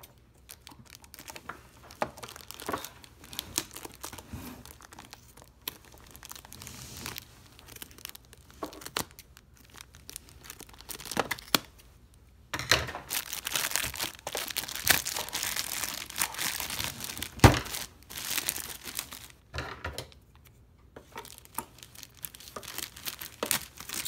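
Thin clear plastic packaging crinkling and tearing as it is cut with scissors and pulled off a boxed electronic unit, in irregular bursts. It is heaviest for several seconds from about halfway in, with one sharp click in the middle of that stretch.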